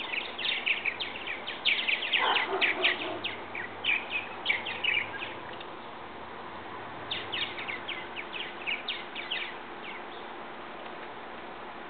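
Purple martins chirping: a rapid run of short high chirps for about five seconds, a pause, then a second run of chirps, over a steady background hiss.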